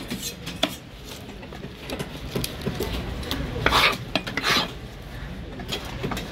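Knife blade scraping scales off a fish on a wooden chopping block, with scattered sharp taps and clicks of the blade. About four seconds in come two longer, louder scraping swishes as the loose scales are swept off the block by hand.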